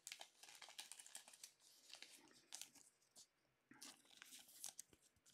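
Faint crinkling and clicking of a thin clear plastic card sleeve and holder as a trading card is slid into it.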